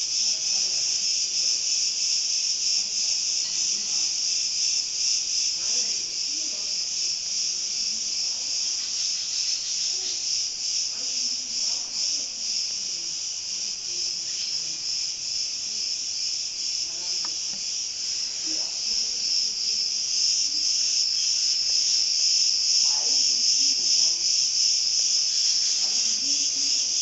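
A dense chorus of insects, one continuous high-pitched chirring drone that grows slightly louder near the end.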